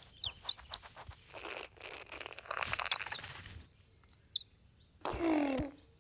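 Animated-film sound effects: short high bird chirps and small clicks, a stretch of rustling and pattering, then a brief pitched sound sliding downward near the end.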